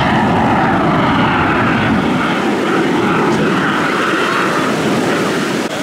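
Aermacchi MB-339 jet trainer's Rolls-Royce Viper turbojet, loud and steady as the aircraft flies a display pass. The deep rumble thins out about two seconds in as it moves away.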